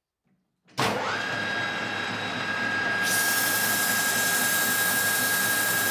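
Metal lathe motor starting with a sudden onset and spinning up, then running with a steady whine. A couple of seconds later a brighter hiss joins.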